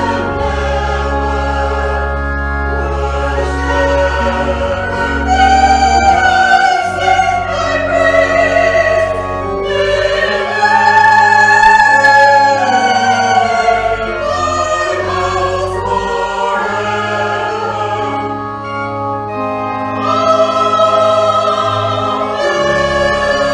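Church music: singing with vibrato over instrumental accompaniment, long-held bass notes changing every few seconds.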